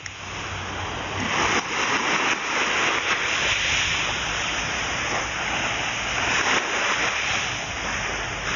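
Small waves washing onto a sand beach: a steady rushing noise.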